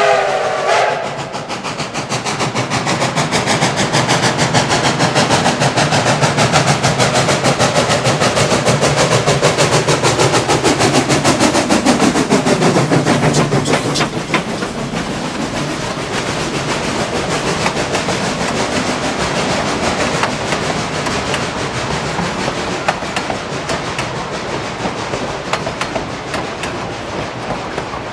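Denver & Rio Grande Western #488, a K-36 narrow-gauge steam locomotive: the end of its whistle cuts off just under a second in. A steady, fast, rhythmic clatter and hiss from the engine follows, with a low tone sliding down about halfway through.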